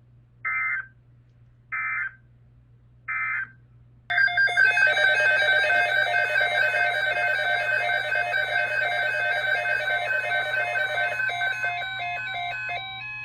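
Three short bursts of emergency-alert data tones about a second apart, typical of an EAS end-of-message code. About four seconds in, a loud synthesized alert sounds: several electronic tones stepping up and down in pitch, easing off near the end.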